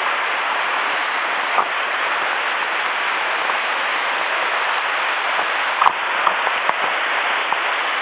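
Steady rush of a mountain stream tumbling over small falls and cascades, running high after a typhoon. A few faint clicks and knocks come through over it, the clearest about six seconds in.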